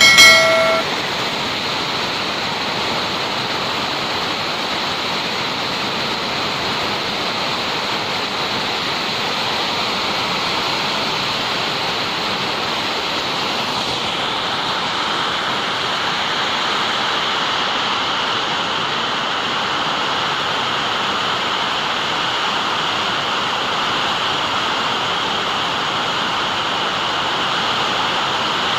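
Steady rain falling in an even hiss. A brief bright chime of several stacked tones sounds right at the start.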